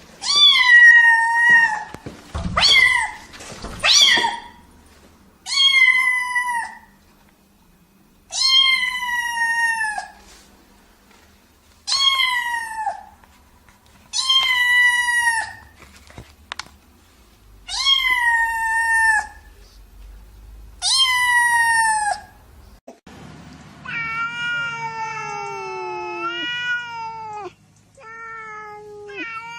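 Domestic cat meowing over and over, about a dozen separate meows, each about a second long with the pitch dropping at the end. Near the end it gives one longer, lower call that wavers in pitch for about three seconds, then a couple of shorter meows.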